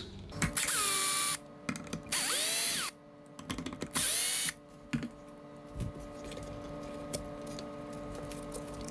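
Power drill-driver backing out the three Phillips-head screws that hold a speaker's tweeter: three short whirring runs of about a second each, the motor's pitch bending as it spins up and slows, with small clicks in between.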